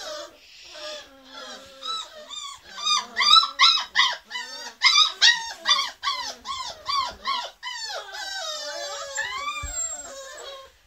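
Beagle puppies yelping and whining, a rapid run of short high yips several a second, turning near the end into longer, wavering whines from several pups at once.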